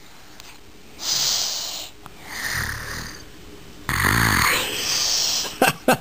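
A small child pretend-snoring in play: hissy breaths alternate with buzzing, rasping snores, the loudest about four seconds in.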